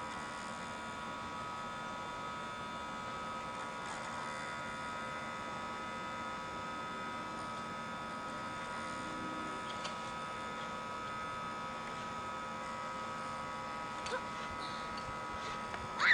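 Steady electrical hum and whine made of several fixed tones over a faint hiss, with a faint click about 14 seconds in.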